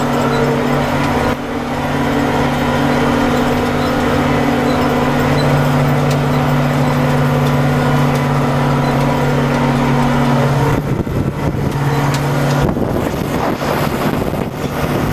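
Case IH JX95 tractor's diesel engine running steadily under load, heard inside the cab while pulling a fertilizer spreader buggy across the field. About eleven seconds in, the steady engine hum breaks up into a rougher, noisier sound.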